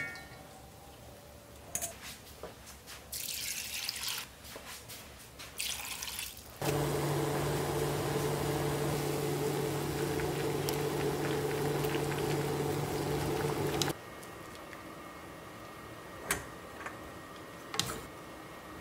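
Cooking water and bean sprouts in a stainless steel pot: short splashes and clinks at first, then about seven seconds of steady boiling-water noise with a low hum, which starts and stops abruptly. After that it goes quieter, with two sharp taps of wooden chopsticks against the pot.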